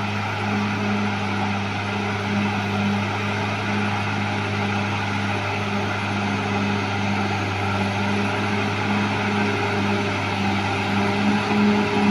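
Caterpillar D6R XL bulldozer's diesel engine running steadily, a low hum with a regular throb.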